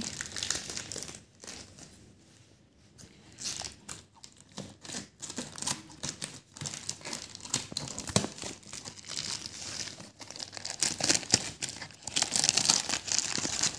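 Plastic courier mailer wrapping crinkling and crackling as it is handled and cut open with scissors. It is quieter for a couple of seconds early on, then grows busier, with the loudest crinkling near the end.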